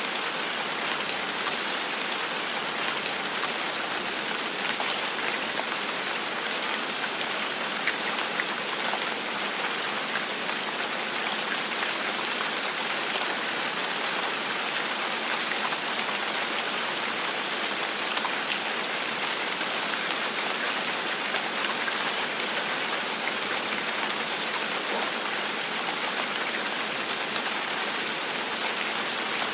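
Steady gentle rain falling, an even hiss with the scattered small ticks of single drops landing on a surface.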